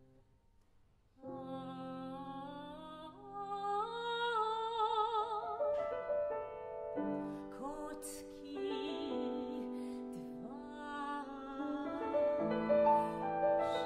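Classical female solo voice singing an art song with grand piano accompaniment. After about a second of near silence, voice and piano come in together, and the voice sings with a wide vibrato.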